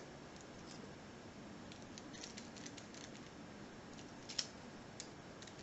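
Faint small metallic clicks and scrapes from tools working in a five-pin padlock's pin-tumbler cylinder, with a sharper click about four and a half seconds in. The clicks are the little movements that the picker takes for serrated pins.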